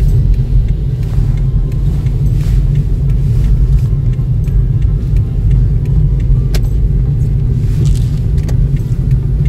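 Steady low rumble of a car's engine and tyres on the road while driving, heard from inside the cabin, with a single sharp click about six and a half seconds in.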